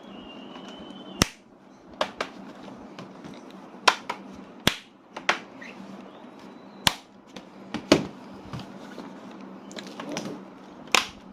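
Plastic bottom cover of a Lenovo IdeaPad 3 laptop being pressed shut, its clips snapping into place in a string of about ten sharp, irregularly spaced clicks.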